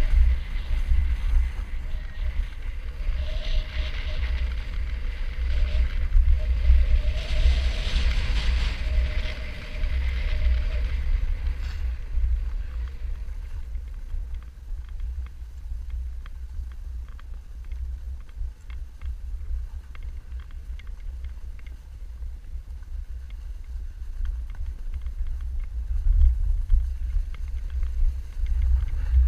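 Wind buffeting the action camera's microphone as a snowboard runs down a groomed slope, a steady low rumble, with the board scraping over packed snow. The scraping is louder through the first ten seconds or so.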